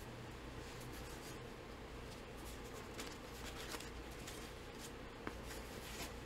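Faint rustling and a few light clicks of things being handled, over a low steady hum.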